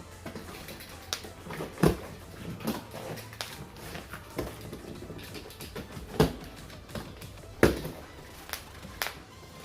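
Irregular knocks, taps and clatter of chair parts and packaging being handled while unboxing an office chair, with three louder thuds about two, six and nearly eight seconds in.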